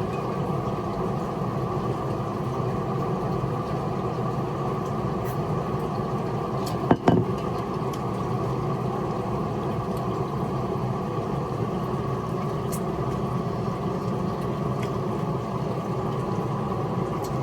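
A steady mechanical hum, like an idling engine, with a brief knock about seven seconds in.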